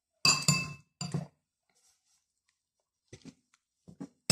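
Metal cutlery clinking and scraping against a ceramic plate while scooping rice: two ringing clinks, about a quarter second in and about a second in, then faint chewing, and another sharp clink at the very end.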